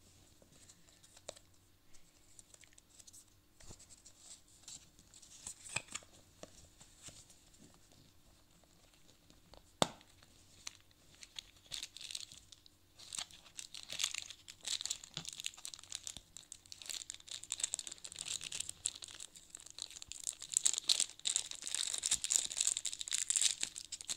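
Small plastic packaging being handled and unpacked: scattered light clicks, one sharp click about ten seconds in, then dense crinkling and rustling of a small plastic bag, loudest near the end.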